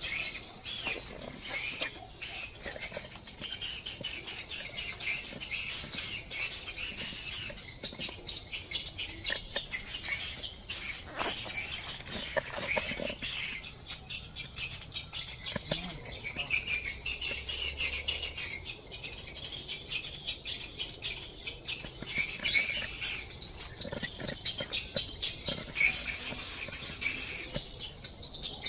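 Steady high-pitched chirping, mixed with the rustle and crackle of leaves and dry litter as the camera is carried through the garden.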